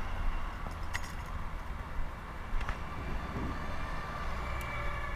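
A steady low rumble under an even hiss, with a few short sharp clicks about one second in and again near the middle.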